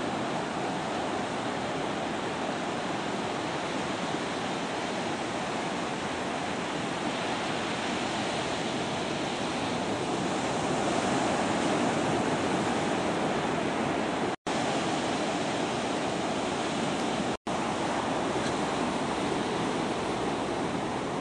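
Ocean surf breaking and washing up the shore, a steady rushing noise that swells a little in the middle. The sound cuts out for an instant twice, about fourteen and seventeen seconds in.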